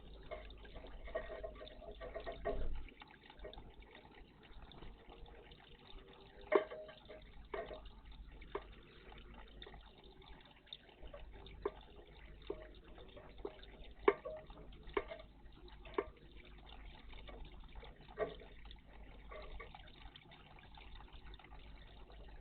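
Water in a garden bird bath splashing and dripping, with short sharp splashes scattered through, the sound of small birds bathing.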